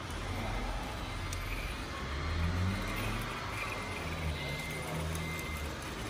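Radio-controlled model truck running, with a low engine-like hum that shifts in pitch a few times.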